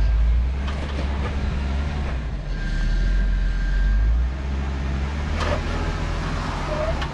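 Jeep Wrangler JKU Rubicon's engine running at a slow rock crawl, a steady low rumble, with two brief knocks or scrapes, one about a second in and one near the end.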